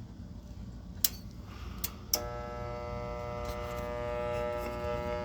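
A few clicks, then a Goodman gas furnace's draft inducer motor starts a steady electrical hum about two seconds in without turning: the motor is getting power but is locked up (seized).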